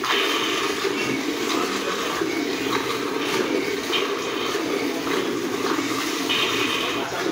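Milk squirting from a cow's teats into a bucket of frothy milk during hand milking, in short squirts that recur roughly once a second over a steady rushing noise.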